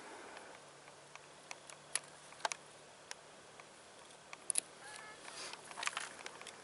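Quiet, with scattered faint clicks and taps of handling noise over a faint steady low hum.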